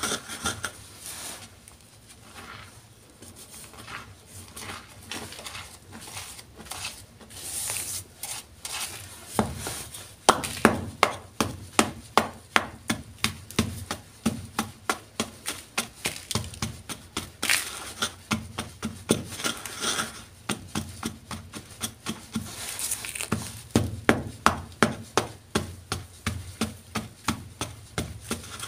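Wooden pestle crushing and grinding powdery gym chalk in a bowl: a quieter gritty grinding at first, then, from about a third of the way in, a long run of sharp crunching strikes, about two to three a second, with gritty scraping sweeps among them.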